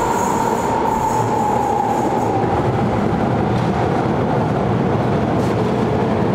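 Frankfurt U-Bahn train moving through an underground station: a steady rumble and running noise, with a whine that slowly falls in pitch over the first few seconds.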